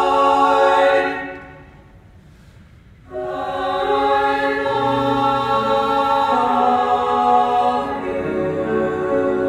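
A mixed high school choir singing sustained chords. About a second in the chord cuts off and rings away in the hall's echo, and about three seconds in the choir comes back in on a new held chord.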